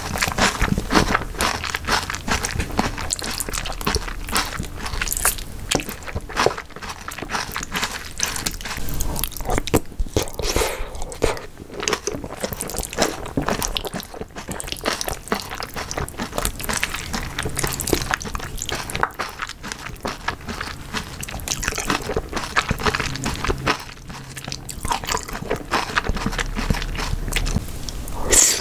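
Close-miked chewing of a mouthful of jjajangmyeon, Korean black bean noodles, with wet, irregular clicking mouth sounds, and a louder burst near the end as a fresh spoonful of noodles is taken into the mouth.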